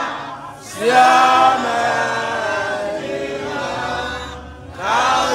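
A crowd of people singing together in long held phrases, with short breaks between phrases just after the start and about four seconds in.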